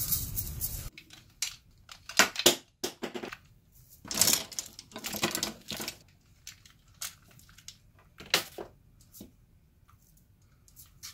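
A handful of paintbrushes being gathered and shuffled in the hands, their handles knocking together in irregular clicks and short rattles that thin out over the last couple of seconds.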